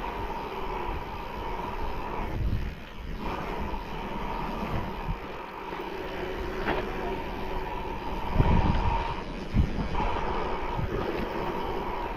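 Mountain bike being ridden over a rough trail, heard from an onboard camera: wind rushing over the microphone, the bike rattling over the ground and a steady whir. Two hard jolts come about eight and a half and nine and a half seconds in.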